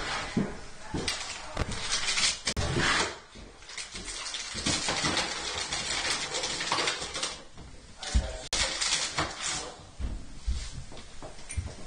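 Belongings being handled and moved: rustling, scraping and irregular light knocks and clicks.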